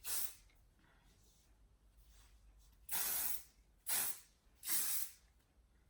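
Hair texture spray being sprayed onto styled hair in short hissing bursts: one at the start, then three in quick succession about three seconds in.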